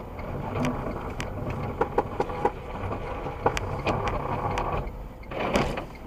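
A car driving on snow, heard from inside the cabin: a steady running noise with irregular sharp clicks and knocks, and a louder burst of noise about five and a half seconds in.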